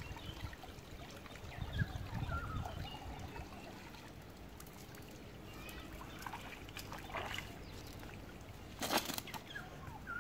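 Water trickling and dripping from a wet cast net as it is hauled out of a pond and carried up the bank, with a brief loud rustle about nine seconds in as the net is set down on the ground. Small birds chirp in the background.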